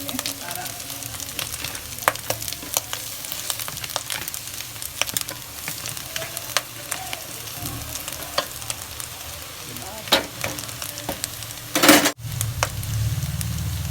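Food sizzling in hot desi ghee in a pan while it is stirred, with frequent clicks and scrapes of the spoon against the pan. A louder scrape or rustle comes near the end, then the sound cuts off abruptly.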